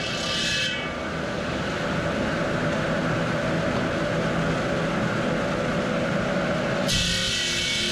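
Stone-cutting machinery in a marble factory running steadily, a dense mechanical noise with a low hum. The sound changes abruptly just under a second in and again near the end, as one machine's noise gives way to another's.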